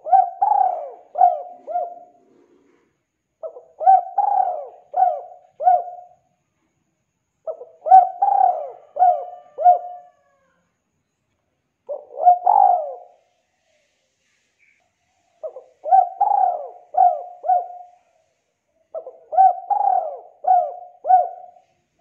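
Spotted dove cooing in repeated phrases: six bursts a couple of seconds apart, most a quick run of four or five low coos, one shorter.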